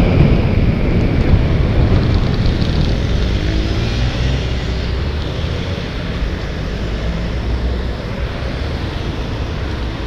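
Wind rushing over a bicycle-mounted Contour GPS action camera's microphone while riding, a steady low rumble that eases off slightly, with road traffic behind it.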